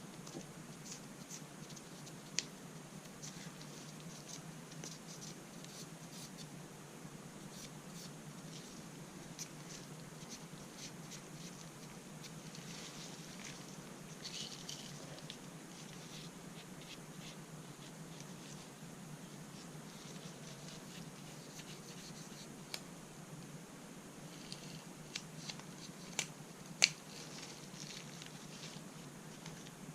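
Hands cleaning rifle parts: light scratching and wiping with many small ticks, a brief stretch of scrubbing around the middle, and a few sharp metal clicks, the loudest near the end.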